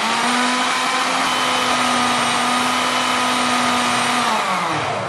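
Electric countertop blender running at a steady high speed, grinding coriander, mint and green chillies with a little water into a smooth paste. About four seconds in it is switched off and the motor's whine falls in pitch as it spins down.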